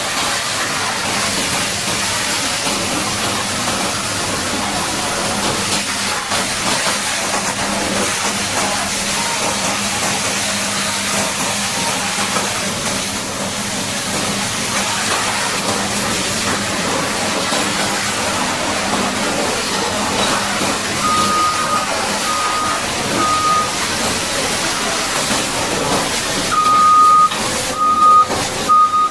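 Steady hiss of a high-pressure water jet washing a Caterpillar D8T bulldozer, over a low engine hum that stops about two-thirds of the way through. Near the end a heavy machine's reversing alarm beeps: three short beeps, a pause, then a longer beep and two short ones.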